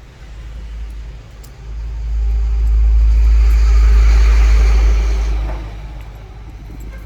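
A motor vehicle passing by: a deep rumble with a broad hiss above it that swells from about a second and a half in, peaks, and fades away by about six seconds.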